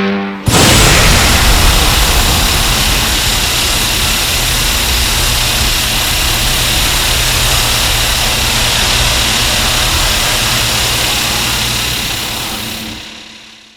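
A King Ghidorah monster sound effect from the 2001 Millennium Godzilla film: a loud rushing, rumbling noise with no clear pitch. It begins suddenly, holds steady for about twelve seconds, then fades out.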